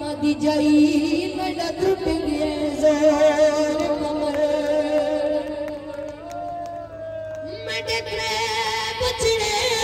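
A boy reciting a noha, a Shia mourning lament for Ghazi Abbas, sung into a microphone in long, wavering, drawn-out notes.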